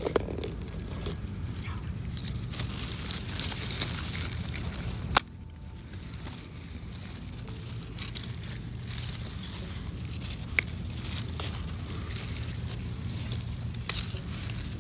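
Strawberry plant leaves rustling and crackling as berries are picked, with a few sharp clicks, the loudest about five seconds in, over a steady low rumble.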